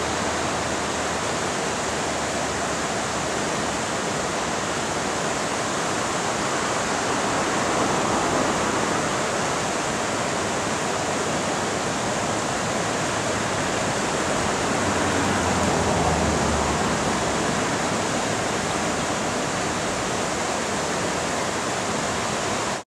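River water rushing over low rock ledges in a small cascade: a steady, even rush of white water.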